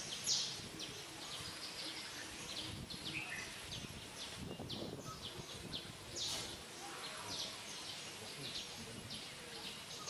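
Small birds chirping in quick, short, high calls repeated a few times a second, over a steady outdoor background hum.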